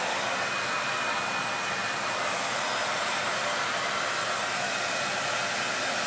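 Handheld hair dryer with a diffuser attachment running steadily on its low fan setting, without heat: an even rush of air with a faint steady high whine.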